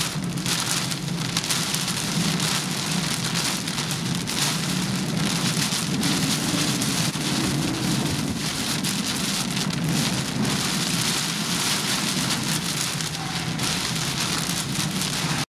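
Heavy wind-driven rain pelting a car's windshield and body, heard from inside the cabin, over the roar of 65 mph gusts buffeting the vehicle. The din is steady and unbroken, with frequent gusty surges.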